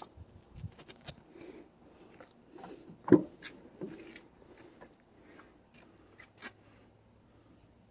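Rear door of a Ford F-150 pickup being opened: one solid latch clunk about three seconds in, amid small clicks and rustles of handling.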